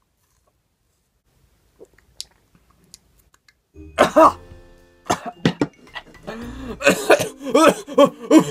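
A few faint swallowing clicks, then about four seconds in a loud burst of coughing and gagging from a person who has just drunk water, continuing as a string of repeated coughs and gags.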